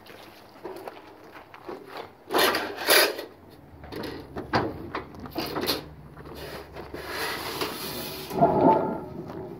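Manual sheet-metal brake bending a 24-gauge steel drip edge: an irregular run of clanks, rattles and scrapes as the clamp handle is thrown and the thin sheet is shifted and folded, loudest about two and a half seconds in.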